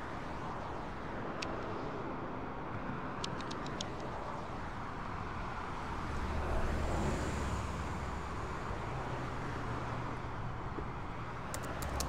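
Steady road traffic below a footbridge, swelling for a couple of seconds around the middle as a vehicle passes. Over it, a handheld tally counter clicks sharply: once a little over a second in, a quick handful of times around three to four seconds, and in a rapid run near the end.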